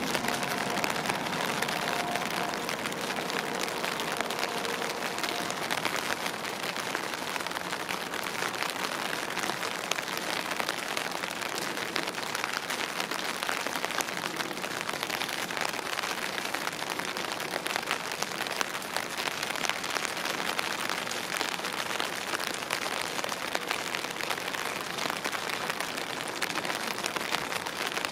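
Steady rain, with many small drop ticks close to the microphone. A faint two-tone alarm, fitting the level crossing's warning, sounds for the first few seconds and then stops.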